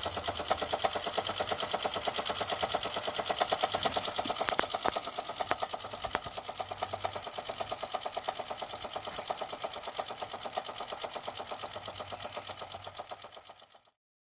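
Toy live-steam engine running, its small cylinder chuffing in a fast, even rhythm of exhaust puffs, with a few sharper clicks about five seconds in; the sound fades out near the end.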